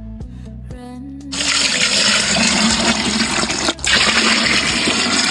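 Water rushing and splashing steadily, as from water being poured out, with a brief break about two-thirds of the way through.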